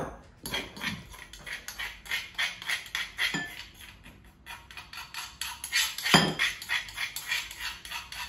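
Metal spoon scraping and tapping crushed dried red chillies out of a stone mortar into a bowl, in quick strokes about three or four a second, with a couple of duller knocks of the mortar.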